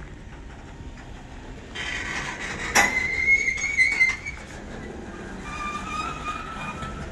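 Freight cars (covered hoppers and tank cars) of a CSX train rolling past: a steady rumble of wheels on rail that gets louder about two seconds in. A sharp clank comes near three seconds, followed by a high wheel squeal lasting about a second, and fainter squeals come near the end.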